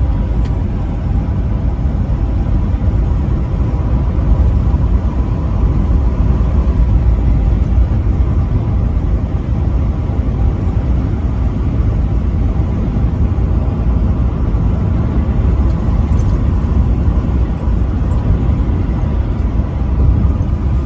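Vehicle driving at highway speed: a steady low rumble of road and engine noise that holds even throughout, with no horn blast.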